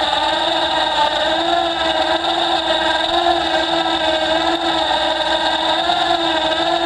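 Can-Am Outlander ATV engine running steadily at idle, its pitch wavering slightly.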